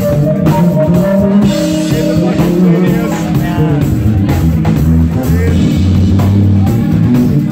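A live funk/R&B band playing: electric keyboards over bass guitar and a drum kit, with a steady beat.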